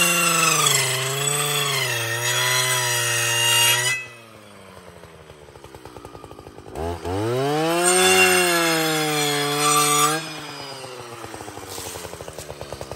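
Stihl FS 561 C brushcutter's two-stroke engine at full throttle, with a circular saw blade cutting wood; its pitch dips and recovers as the blade takes load. It drops to a low ticking idle about four seconds in, revs up again about three seconds later, and falls back to idle about ten seconds in.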